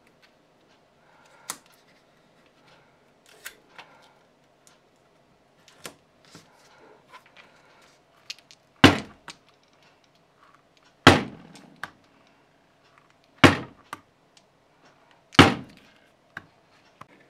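Four heavy thunks about two seconds apart, each dying away quickly, with lighter taps and clicks before them.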